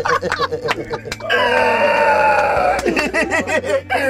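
Men laughing hard, broken about a second in by one long high-pitched cry that lasts about a second and a half and falls slightly in pitch.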